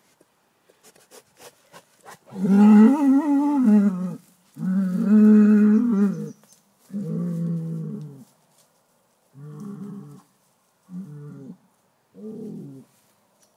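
A bull mooing in a series of six calls: two long, loud, wavering moos first, then four shorter, fainter ones with short pauses between them.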